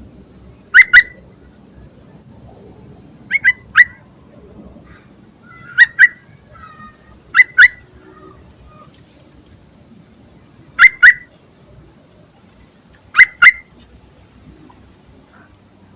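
Sooty-headed bulbul (trucuk) giving short, sharp call notes, most in quick pairs and one in a triplet, repeated six times every two to three seconds.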